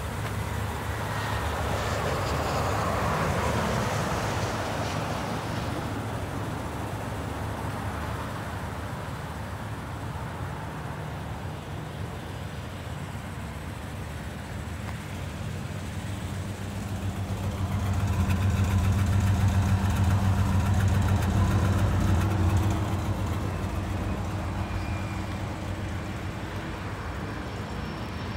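A 1967 Pontiac Safari Executive station wagon's engine idling steadily, growing louder for several seconds about two-thirds of the way through.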